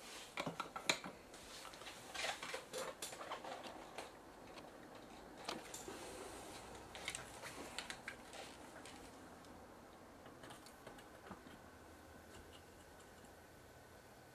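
Faint clicks and light scraping of soldering tools against the solder joints of a circuit board, clustered in the first few seconds and again around six to eight seconds in.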